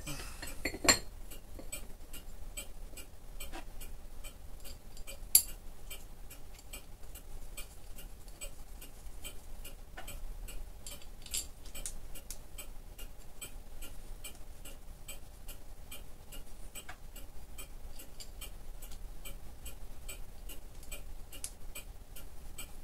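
A mechanical clock ticking steadily, about three ticks a second, with two louder sharp metal clinks about a second in and about five seconds in as the dividing head's index plate is handled and fitted.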